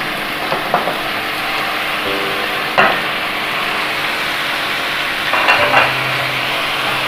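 Raw chicken pieces sizzling in hot oil with onion, garlic and ginger, being sautéed and stirred with a wooden spatula. A steady frying hiss, with a sharp knock of the spatula against the pan about three seconds in and a few lighter knocks a couple of seconds later.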